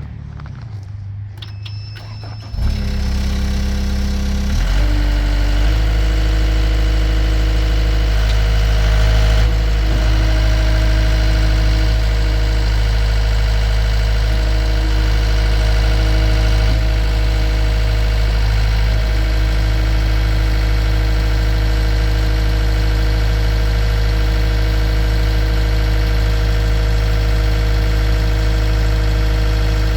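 Mustang skid steer's engine starting: a low hum, a step up in loudness about two and a half seconds in, then the engine catches about four and a half seconds in and runs steadily at a constant speed.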